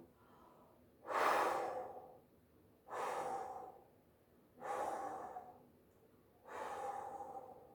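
A person blowing out through the mouth four times, long whooshing breaths each fading away, imitating the north wind blowing.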